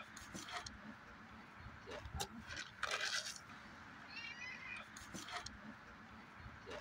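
Domestic cat meowing once, a short high call about five seconds in, among brief rustles and clicks from handling a bag and a jar of dry food; the loudest rustle comes about three seconds in.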